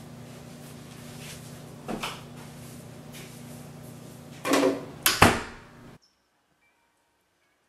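Interior door being handled over a steady low room hum: a knock about two seconds in, then a louder scrape and a sharp bang about five seconds in. After a sudden cut about six seconds in it is almost silent, with a few faint laptop key taps.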